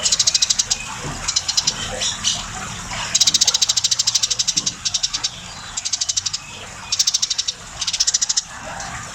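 Eurasian tree sparrow chattering: bouts of rapid, high chirps, each under a second long, repeated about ten times with short pauses between.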